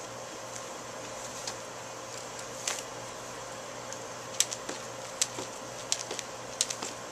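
Jump rope slapping the pavement in a series of sharp clicks: a few scattered slaps at first, then about two a second from about four seconds in, over a steady background hiss and hum.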